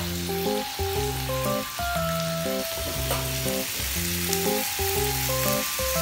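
Sliced pork and long beans sizzling in a small nonstick frying pan over a gas flame, stirred with a wooden spatula as the sauce cooks down and coats the pork. Background music with a repeating tune plays over the sizzle.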